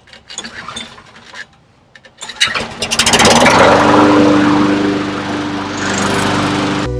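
Scattered light handling noises, then a small gas lawn mower engine catches with a quick run of firing strokes about two and a half seconds in and runs steadily. It cuts off abruptly just before the end.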